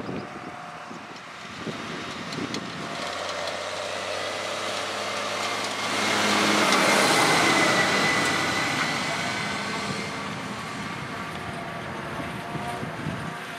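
Claas tractor towing a silage trailer driving past, its engine rising to a peak about six to eight seconds in and then fading as it pulls away.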